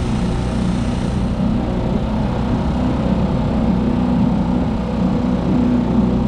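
Small outboard motor on an inflatable boat running steadily under way, a constant engine drone.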